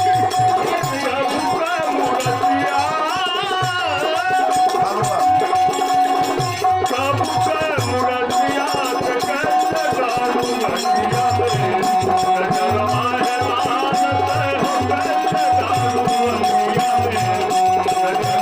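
Indian devotional folk music in teen taal: a wavering vocal or melodic line over a steady held drone note, with a hand drum keeping a regular beat and a shaken rattle jingling along.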